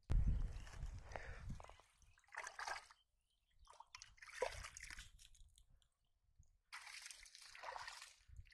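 Hands sloshing and groping through shallow muddy water, splashing and squelching in short irregular bursts with brief pauses between them; the heaviest splash comes right at the start.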